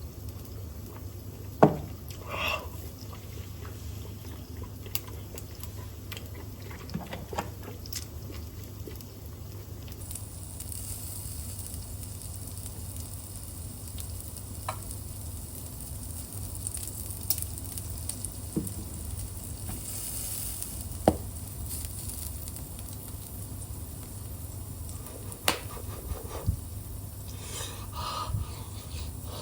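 Pork shoulder loin sizzling on an electric shichirin grill, the sizzle getting stronger about a third of the way in, with scattered clicks and taps of utensils. A steady low hum of the range-hood fan runs underneath.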